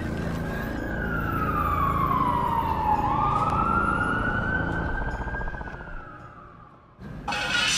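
A siren wailing in one slow sweep: falling, rising again, then falling as it fades away about six to seven seconds in. Music starts just before the end.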